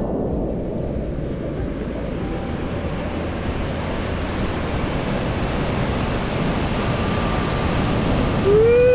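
Steady rush of breaking ocean surf, with wind on the microphone. Near the end a person lets out a long held call.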